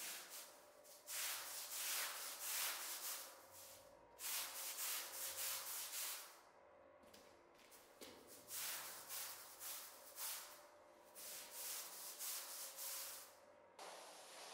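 A rug being scrubbed: rough rubbing strokes across its pile come in four runs of several strokes each, with short pauses between. Near the end a steady hiss starts.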